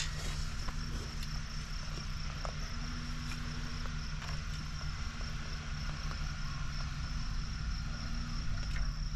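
Off-road vehicle's engine running low and steady while it is driven over the fill to pack it down, with a steady high insect buzz over it and a few faint clicks.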